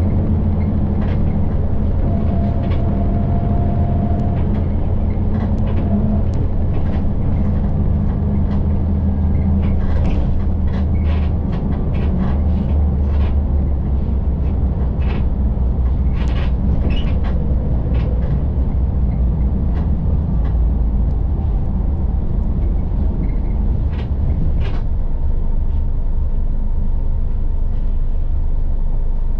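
Cabin noise inside a city bus under way: a steady low drone of engine and road, with many short rattles and clicks from the interior.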